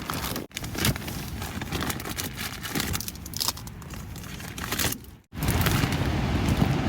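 Plastic food packets and bags being rummaged through and handled, an irregular crinkling and rustling. The sound cuts out briefly twice, about half a second in and near five seconds in.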